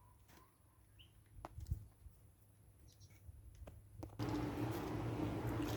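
Faint handling noises of washer parts during reassembly: scattered light clicks and short squeaks, with a louder knock under two seconds in. About four seconds in a steady low hum with hiss starts abruptly.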